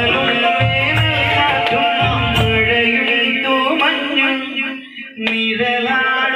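A man singing a Malayalam song into a microphone over electronic keyboard accompaniment with a bass-and-drum beat. The beat drops out about three seconds in, leaving voice and keyboard, and the singing closes on held notes near the end.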